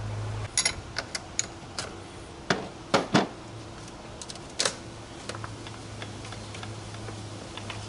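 Irregular metal clicks and taps of a wrench loosening the positive terminal clamp on a car battery and of the clamp being worked off the post, most of them in the first five seconds. A steady low hum runs underneath.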